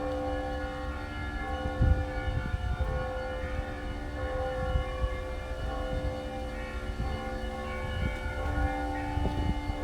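Russian Orthodox monastery bells ringing: many overlapping bell tones at different pitches sounding and hanging on as they die away, over a low rumble with a thump about two seconds in.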